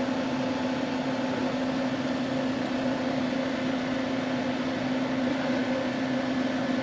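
Kalut pickup idling while stationary, with its electric radiator cooling fan running: a steady whoosh with a constant hum. The fan is on because the coolant has passed about 90 °C.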